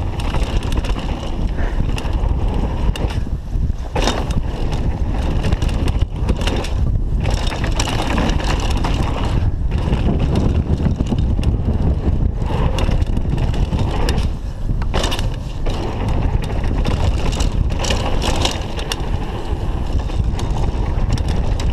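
Downhill mountain bike descending a dry dirt trail at speed: continuous rolling noise of knobby tyres on packed dirt and loose gravel, wind on the microphone, and sharp knocks and rattles from the bike over bumps and landings several times.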